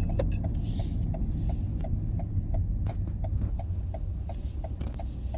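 Car interior: a low, steady engine and road rumble with a rapid, very regular series of short beeps, about five a second.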